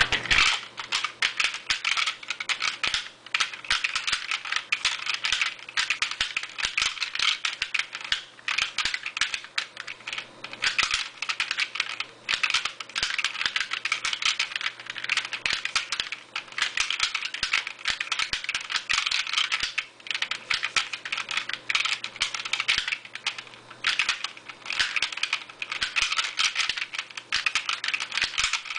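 Plastic knobs of a seven-knob Spin-Out puzzle being turned and shuttled back and forth in their plastic case, a fast, continuous run of small plastic clicks and clacks.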